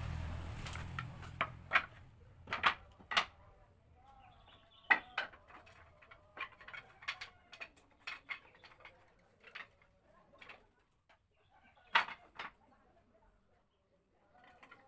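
Scrap wooden offcuts knocking and clattering against each other as they are picked through and moved by hand: sharp wooden clacks at irregular intervals, the loudest a few seconds in and again near the end.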